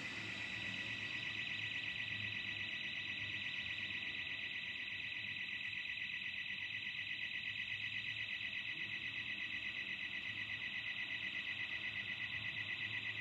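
Burglar alarm sounder going off: a high-pitched electronic tone pulsing rapidly and evenly, without a break.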